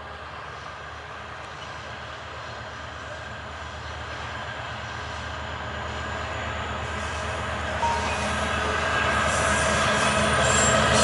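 EMD GT22 diesel-electric locomotive approaching with a passenger train, its two-stroke diesel engine running steadily and growing louder as it nears. Wheel and rail noise builds in the last couple of seconds as it draws close.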